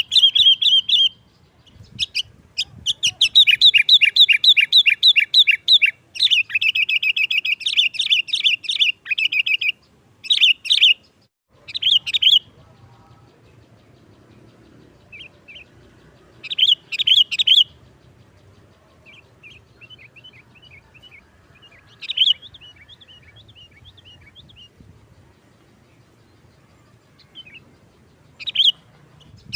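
Sooty-headed bulbul (kutilang) singing in rapid, chattering trilled phrases, loud and nearly continuous for the first dozen seconds, then in shorter scattered bursts with pauses.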